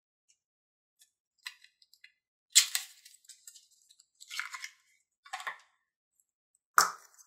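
A small cardboard lipstick box being opened by hand and the lipstick tube slid out: a handful of short scraping, tapping and clicking handling sounds, the loudest about two and a half seconds in and again near the end.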